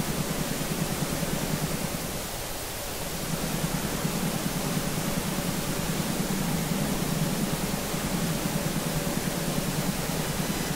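Steady rushing hiss with a low rumble underneath and no distinct events, dipping briefly about two seconds in.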